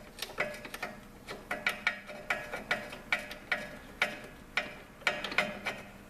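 Ratchet wrench clicking in short, irregular runs, a few clicks a second, as a rear shock mounting bolt is turned in; the bolt is threading in easily.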